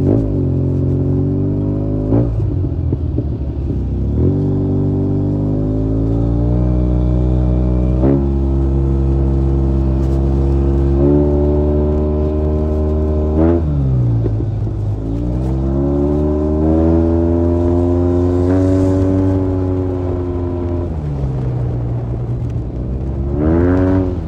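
Motorcycle engine running under throttle while riding, its pitch climbing and then dropping sharply about half a dozen times as the throttle is opened and eased off.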